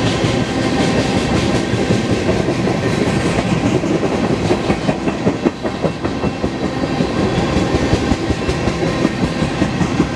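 Freight train cars rolling past close by, their steel wheels clacking steadily over the rail joints.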